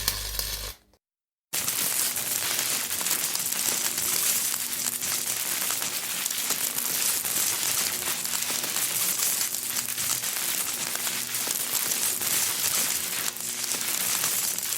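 Electrical sound effects. A buzzing hum effect cuts off about a second in, and after a brief silence a long, dense crackle of electric sparking or arcing, made of many fine rapid clicks, runs on steadily.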